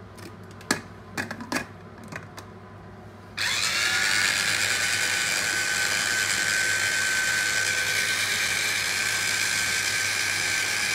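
A few clicks and knocks as the lid of an electric mini food chopper is fitted, then about three and a half seconds in its motor starts, quickly spinning up into a steady, high-pitched, annoying whine as it blends cooked celeriac into a purée.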